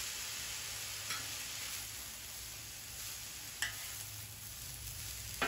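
Broccoli and onion stems sizzling in hot oil in a cast-iron wok, stirred with a metal spatula. Two light clinks of the spatula against the wok, about a second in and again past three and a half seconds.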